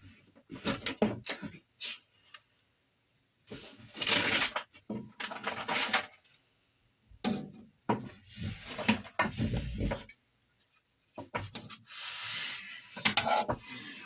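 Irregular rubbing and scraping with light knocks and clicks, in bursts with short pauses: the silicone heater pad and aluminium bed plate being handled and pressed down.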